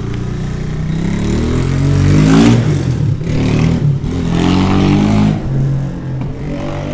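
Kayo T2 motorcycle engine revving twice, its pitch climbing each time before dropping back.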